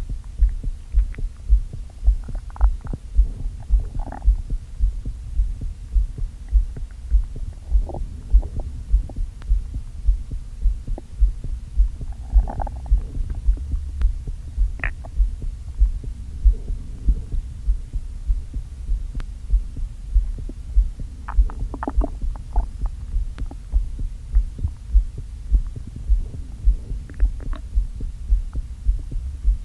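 Heartbeat pulse picked up by a microphone held on the belly: a steady, regular train of low thumps. Now and then there are faint gurgles and squeaks from an upset stomach, with a larger gurgle starting near the end.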